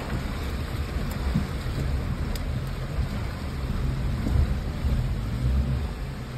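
Suzuki Jimny JB43 crawling over a rocky creek bed, heard from inside the cabin: a steady low rumble of the 1.3-litre engine and tyres working over stones, with a few light knocks.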